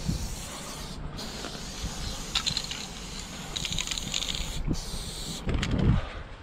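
Aerosol spray paint can hissing as it sprays a blue outline, stopping briefly twice, with some low thuds near the end.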